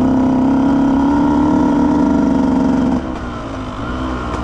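Husqvarna TE125 two-stroke dirt bike engine pulling at steady, slightly rising revs. About three seconds in the throttle is shut and it falls to a lower, quieter run.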